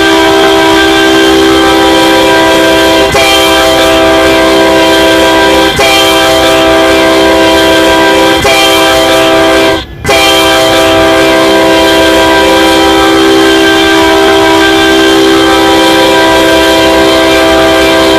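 BNSF GP60M locomotive's air horn sounding very loud, a chord of several tones. It is held almost continuously, dipping briefly about 3, 6 and 8½ seconds in and stopping for a fraction of a second about 10 seconds in, then held in one long blast.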